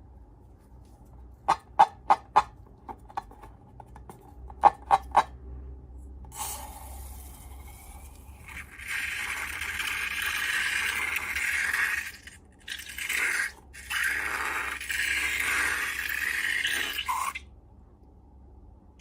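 Slime-making handling sounds: a few quick runs of sharp clicks, then long stretches of scraping with brief pauses between them.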